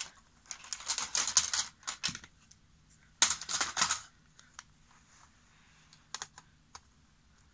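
Hard plastic toy train track pieces clattering and clicking as they are handled and fitted together: two bursts of rapid clicks in the first four seconds, then a few scattered single clicks.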